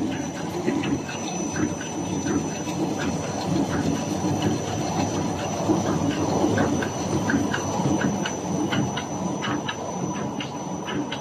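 BOPP/PE shape bag making machine running: a steady mechanical rumble with rapid, irregular clicking and ticking from its moving parts, over a thin steady high-pitched whine.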